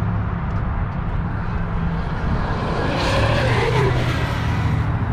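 A radio-controlled car speeds past about three seconds in, its motor whine rising and then dropping in pitch, over a steady low rumble.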